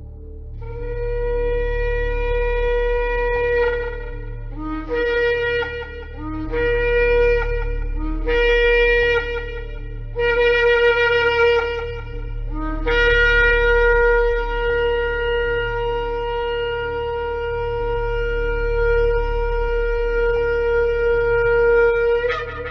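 A shofar sounding: one long blast, four shorter blasts, then a very long held blast that rises in pitch just before it ends. Each blast starts on a brief lower note before settling on its main note.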